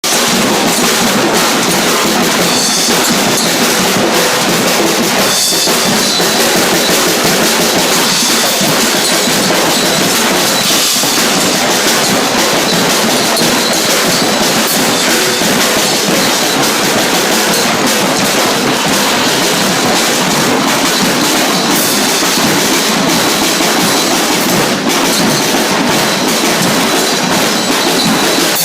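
Drums and percussion playing loud, dense music without a break.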